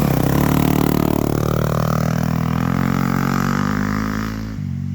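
Dirt bike engine revving under load as the bike pulls away, its pitch climbing then easing off near the end before cutting off abruptly.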